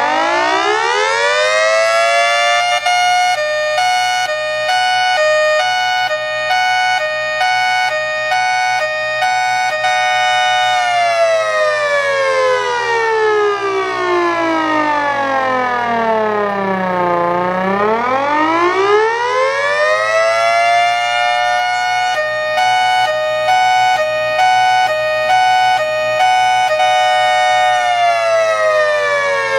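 3D-printed miniature Federal Signal Thunderbolt 1003 siren sounding. It winds up to a high, steady wail that pulses rapidly while held, then winds down to a low tone about halfway through. It climbs back up, pulses again, and starts to fall near the end.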